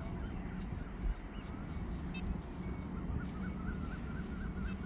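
Outdoor evening ambience: a steady, rapidly pulsing high insect buzz, short warbling bird calls from about three seconds in, and a low wind rumble on the microphone. No drone motors are running.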